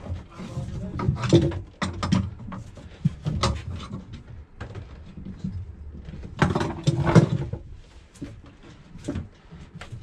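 Irregular clicks, knocks and scraping of gloved hands and a tool working a seacock fitting onto its thru-hull in a boat's bilge locker, with a louder burst of rattling about six and a half seconds in.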